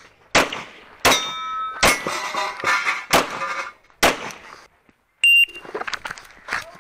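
Glock 17 Gen 4 9mm pistol firing a string of shots about a second apart. Steel targets ring with a lingering clang after hits, and there is a short, piercing high ring a little after five seconds.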